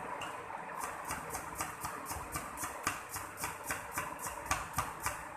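Kitchen knife chopping a potato on a wooden chopping block: a steady run of sharp taps, about four a second, starting about a second in.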